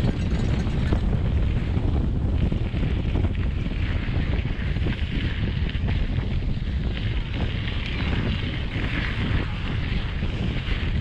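Wind rushing over a handlebar-mounted GoPro's microphone while riding, mixed with a mountain bike's tyres rolling over a dirt and gravel track. The sound is a steady, heavy rumble and hiss with small scattered bumps.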